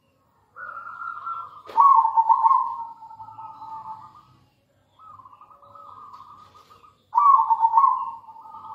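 Zebra dove (perkutut) singing its rolling, trilled coo in two phrases of about three to four seconds each. A sharp click cuts in about two seconds in.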